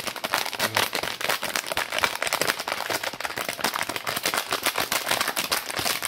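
A person chewing a mouthful of Nerds candy: loud, rapid, irregular crunching.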